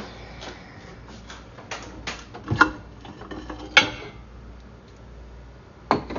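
Microwave oven door being opened and a ceramic bowl taken out: a string of clicks and knocks, with louder knocks about two and a half seconds in, near four seconds, and near the end.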